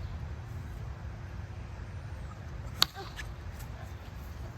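A single sharp knock about three seconds in, over a low steady background rumble.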